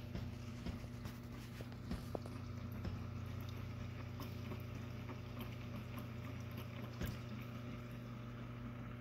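Steady low hum from a running machine such as a pump or fan, with scattered faint clicks, the sharpest about two seconds in and again about seven seconds in.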